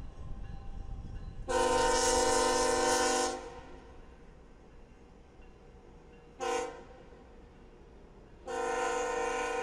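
Passenger train rolling past with a low rumble, while the locomotive's air horn sounds a long blast, a short blast and another long blast. The horn is several steady tones at once.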